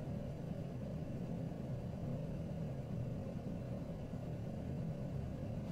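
Steady low background rumble, the room ambience laid under the scene.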